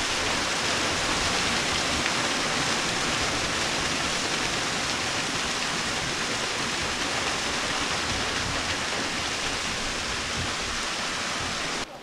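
Waterfall and its stream rushing steadily, a loud even roar of falling and running water; it cuts off suddenly just before the end.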